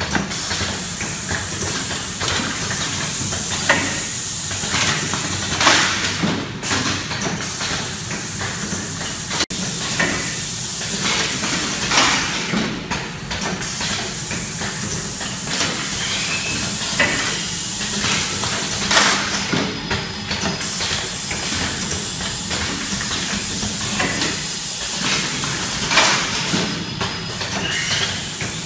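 Pneumatic automatic bag-filling machine running: a steady hiss of compressed air under a low hum, with short knocks from its cylinders and the hiss dropping out briefly about every six to seven seconds as it cycles.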